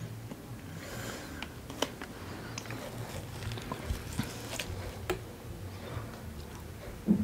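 A metal spoon scooping and scraping watermelon flesh in the rind, with wet chewing: scattered soft clicks and squelches over a faint low hum, and one louder knock near the end.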